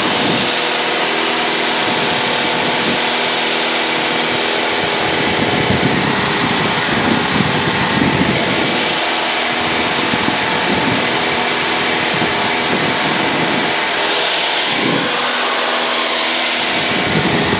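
Cessna 172N Skyhawk's four-cylinder Lycoming O-320 engine and propeller droning steadily in flight, heard through the cockpit headset intercom as a loud, even hum over a rushing noise, with a few low swells in the middle and near the end.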